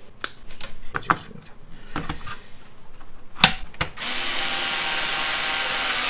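A few clicks and knocks of parts being handled inside a steel PC case, the loudest about three and a half seconds in. Then a cordless drill-driver starts about four seconds in and runs steadily, driving a screw.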